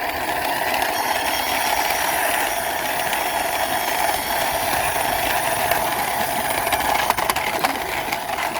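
Toy car's plastic wheels rolling along a hard surface as it is pushed by hand, a steady rumbling noise with a few clicks about seven seconds in.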